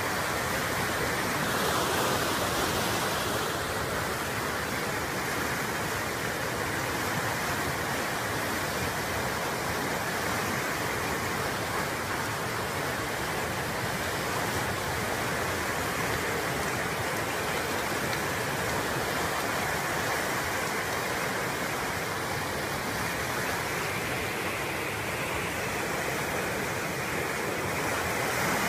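Muddy flash-flood water rushing steadily, a continuous noise of fast-moving water.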